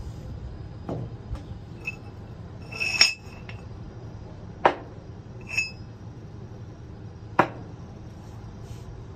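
Steel parts of a slickline releasable rope socket being handled and set down on a hard floor: a series of metal clinks and knocks, some ringing briefly, the sharpest about three, four and a half, and seven seconds in.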